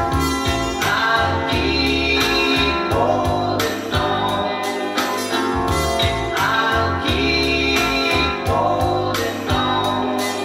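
Recorded music played from a vinyl record on a Linn Sondek LP12 turntable: a pop song with a singing voice over instrumental backing and a moving bass line.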